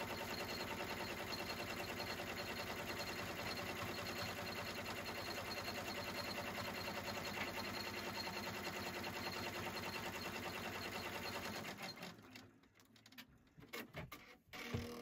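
Embroidery machine stitching at a steady fast rate, stopping about twelve seconds in, followed by a few light clicks and knocks.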